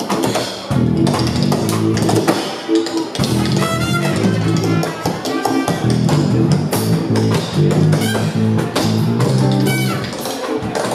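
Live band music, with trumpet, guitar and bass, alongside the sharp clicks of tap shoes striking the stage in quick rhythmic runs.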